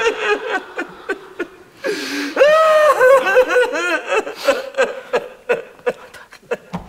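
A man sobbing and wailing: broken, gasping cries that rise and fall in pitch, with one longer held wail a little over two seconds in.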